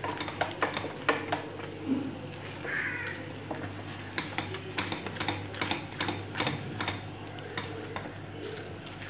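Silicone spatula stirring thick custard halwa in a stainless-steel pan, scraping and knocking against the pan several times a second, with a faint sizzle of the ghee-coated mixture.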